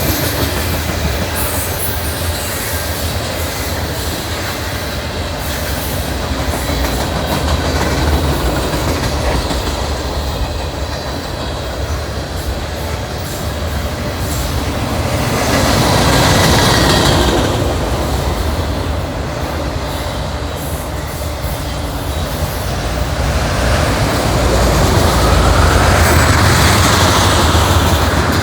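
Long Norfolk Southern manifest freight train's cars rolling past with a steady rumble and rattle of wheels on the rails, swelling louder twice.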